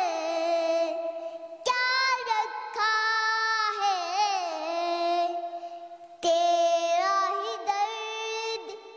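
A young boy singing solo in a high voice, holding long notes that bend and waver, with short breaks between phrases about two seconds in and about six seconds in.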